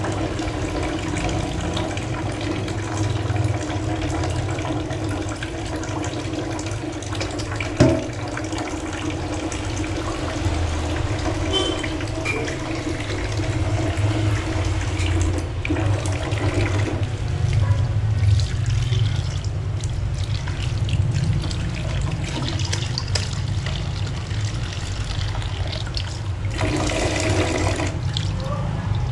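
Tap water running into a stainless steel kitchen sink while a wok is scrubbed and rinsed under it. One sharp metal knock about a quarter of the way through.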